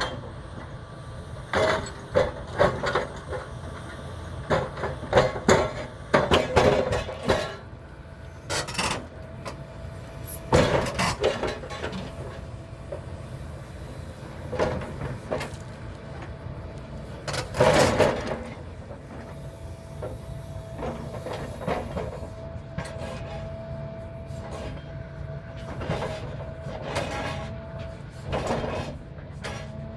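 Hitachi crawler excavator's diesel engine running steadily, with repeated loud metallic clanks and bangs as its grapple grips and knocks steel tube sections of a dismantled radio antenna mast. A steady hydraulic whine comes in about halfway through.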